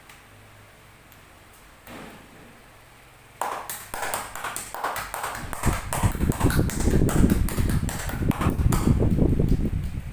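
Hands striking the body in quick succession during a massage: sharp slaps and taps starting about three seconds in, building into a rapid run of heavy thumps.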